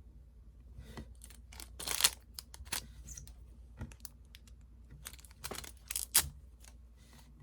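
Packaging being handled and opened by hand: scattered rustles, crinkles and clicks, loudest about two seconds in and again around six seconds.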